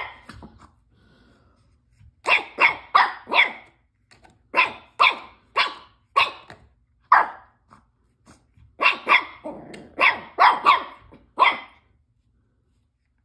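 Shih Tzu puppy barking: short, sharp barks in quick runs of three to five, with pauses of about a second between runs.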